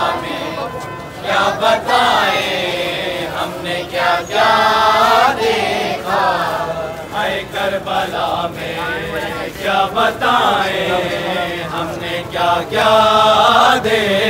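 A group of men chanting a nauha, the Muharram lament for Karbala, in loud, drawn-out melodic phrases with many voices together.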